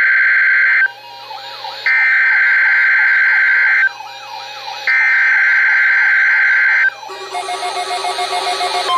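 NOAA Weather Radio SAME (EAS) header: harsh, screeching digital data bursts about two seconds each, sent three times with a second's pause between, coding a Required Weekly Test. In the last two seconds a quieter cluster of steady tones rises in level.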